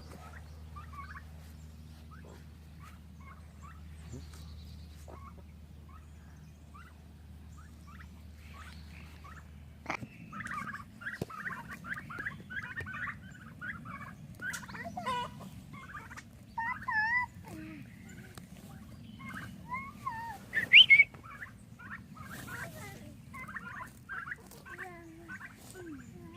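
A flock of domestic turkeys gobbling and calling, sparse at first and then a dense run of rapid calls from about ten seconds in, the loudest call just after twenty seconds. A low steady hum sits under the first ten seconds.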